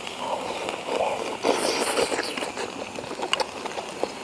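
Eating sounds as a mouthful of hot beef is taken and chewed, followed from about three seconds in by several light, sharp clicks of wooden chopsticks against a porcelain bowl.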